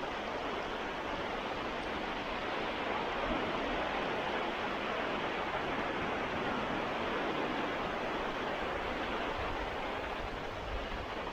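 Baltic Sea waves washing in: a steady rushing noise without separate crashes, with a low rumble underneath.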